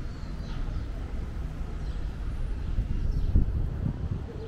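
Outdoor ambience dominated by a low, unpitched rumble of wind buffeting the microphone, swelling in a couple of gusts in the second half.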